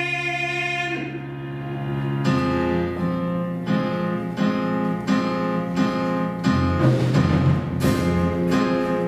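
Song from a stage musical: the last sung word is held briefly, then the instrumental accompaniment plays on alone in repeated chords about twice a second, growing fuller near the end.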